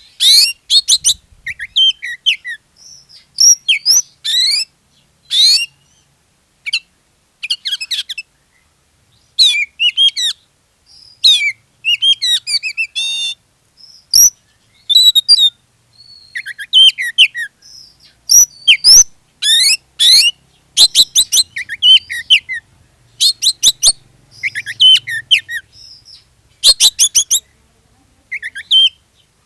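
Oriental magpie-robin in full, vigorous song: loud bursts of rapid, varied whistles, trills and chattering phrases, separated by short pauses. This is the 'gacor' song used as a lure to prompt other magpie-robins to sing.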